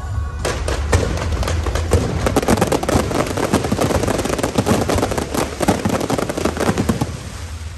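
A long string of firecrackers going off in rapid, dense crackling that starts about half a second in and thins out near the end.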